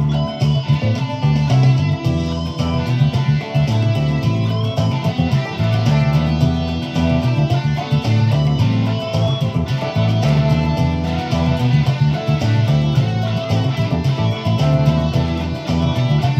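Amplified Stratocaster-style electric guitar playing a boogie tune, a steady run of picked notes and strums with a strong low end.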